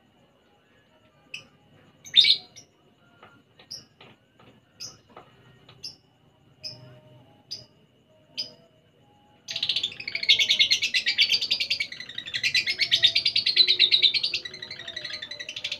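Male lovebird calling: sharp single chirps every half second to a second, then, about nine and a half seconds in, a loud, continuous rapid chattering that runs on without a break.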